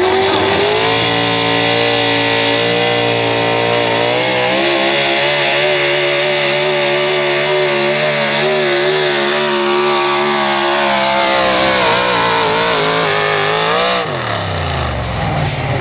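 Pro stock 4x4 pulling truck's racing engine at full throttle under load, dragging a pulling sled: the pitch climbs briefly, holds high and steady, then sags as the sled bogs the truck down. About fourteen seconds in the throttle is cut, the engine note drops suddenly and the revs fall away as the pull ends.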